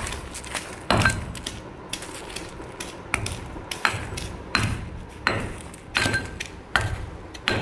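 Lumps of rock salt being pounded with a heavy pestle in a small mortar: about ten steady strikes, a little under one and a half a second, a few with a short ring, breaking the salt into small pieces.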